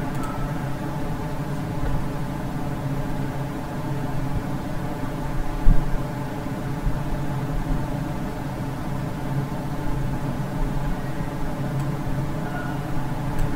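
Steady electrical hum with hiss, the background noise of the recording, with one short click about six seconds in.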